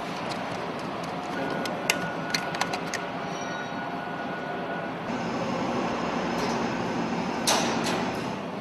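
Steady machinery noise in an engine room, with a few sharp clicks and knocks of tools and panels being handled during work on the engine's exhaust cladding, some about two seconds in and a louder one near the end.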